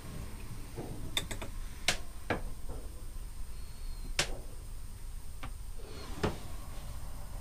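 A few scattered sharp clicks and light knocks inside a sailboat's wooden cabin, over a steady low rumble.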